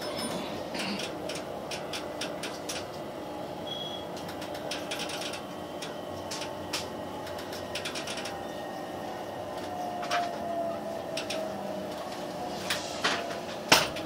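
Inside a JR West 287-series electric express train running slowly along the terminal platform as it comes in to stop: a steady running hum with irregular clicks and knocks from the wheels and car body. About ten seconds in, a faint whine slides down in pitch as the train brakes, and there is a sharp knock just before the end.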